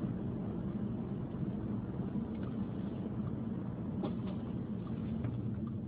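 Car driving along the road: steady engine and tyre noise heard from inside the cabin, with a couple of faint ticks about four seconds in.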